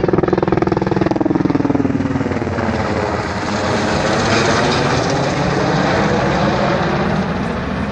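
UH-60 Black Hawk helicopter flying low overhead: rapid beat of the rotor blades over the twin turboshaft engines. Its pitch drops about two seconds in as it passes over and moves away.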